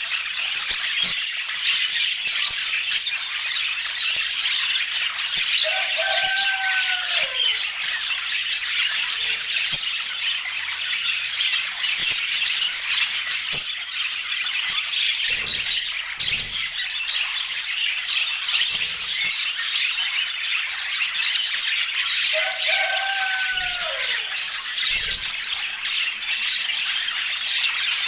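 A flock of budgerigars chattering without a break, a dense mass of high chirps and warbles. Twice a lower call stands out, gliding down in pitch.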